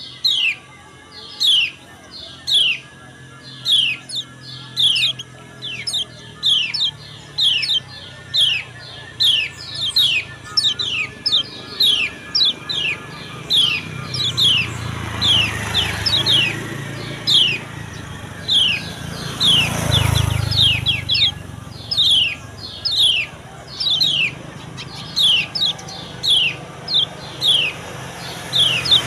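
Female kecial kuning (white-eye) giving a steady series of short, downward-slurred 'ciak' call notes, nearly two a second. A low rumble swells up in the middle and fades again.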